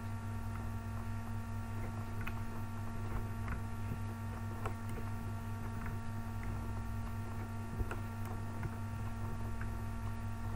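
Steady electrical hum from the recording setup, with several steady tones above it, and faint, irregular clicks of a computer mouse being used to zoom a map.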